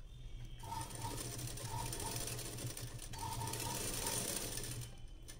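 Durby domestic sewing machine running and stitching cloth. It starts about half a second in and stops shortly before the end.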